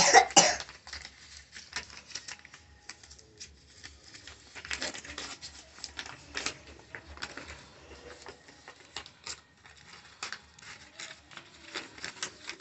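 Paper banknotes being sorted by hand, a string of short crisp rustles and snaps as the notes are handled and stacked, loudest in a burst at the start.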